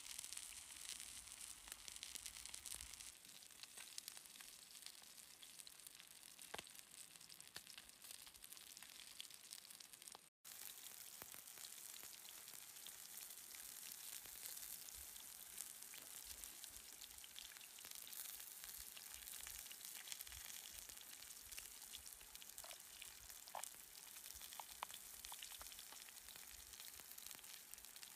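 Faint, steady sizzling of a salmon fillet frying in a pan on a Firebox stove. A few soft clicks near the end come from a knife cutting into a red bell pepper.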